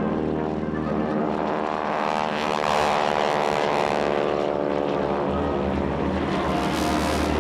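Formation of North American Harvard / T-6 Texan trainers flying past, their Pratt & Whitney R-1340 Wasp radial engines and propellers making a steady, rasping drone that swells to its loudest about three seconds in.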